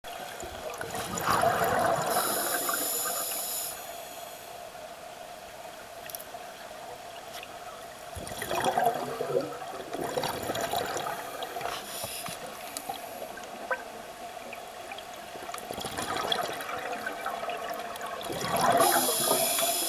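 Scuba diver's regulator exhaust bubbles recorded underwater: four bursts of bubbling and hiss several seconds apart, one per exhalation, over a steady faint hum.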